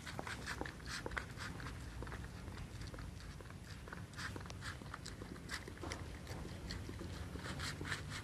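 Dog eating raw chicken breast from a plastic tray: irregular chewing and biting with many short clicks and smacks.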